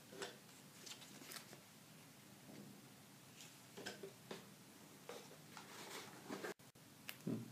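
Faint, scattered taps, scrapes and rustles of cardboard boxes being lifted out of a shipping box, slid past each other and set down.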